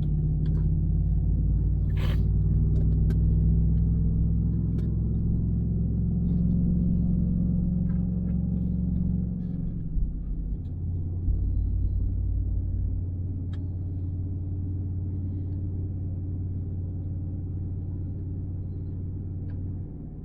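Kubota SVL75-3 skid steer's diesel engine running steadily. Its note changes about halfway through, with a couple of knocks around then.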